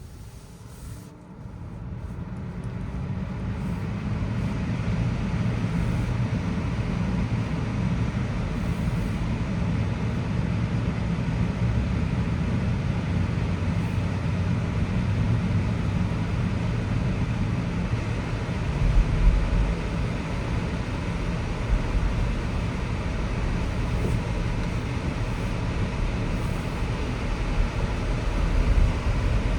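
Road and tyre noise of a Tesla driving on wet pavement. It builds up over the first few seconds as the car gathers speed, then runs steadily with a low rumble and no engine note.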